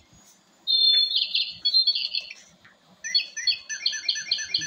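Electronic birdsong from a battery-operated toy birdcage bubble machine. About a second in, a high whistle gives way to a warbling run of chirps. From about three seconds in comes a fast, even string of repeated chirps, about five a second.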